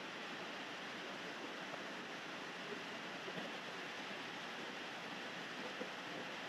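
Steady rain falling, an even hiss, with a few faint clinks of a spoon against a plate.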